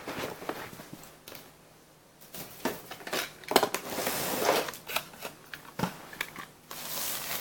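Storm Capricorn Beyblade being readied and launched for a spin test: plastic clicks and rattles from the top and its launcher, with a rasping pull about halfway through.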